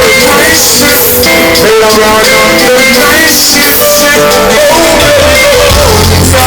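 Live reggae-dancehall band music recorded loud on a phone, with a bending sung melody over the band. A heavy bass line comes in near the end.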